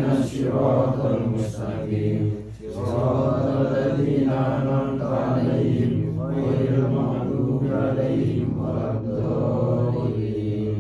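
Group of male voices chanting an Arabic Islamic recitation in unison, in long held phrases with a short break for breath about two and a half seconds in.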